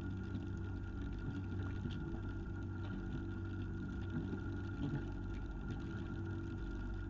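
Fishing boat's inboard engine running steadily: an even low hum with a thin steady whine above it.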